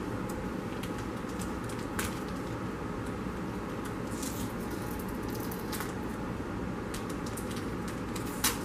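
Faint, scattered crinkles and crackles of aluminium foil and a plastic chip-bag wrapper being pinched and folded by hand, over a steady background hum.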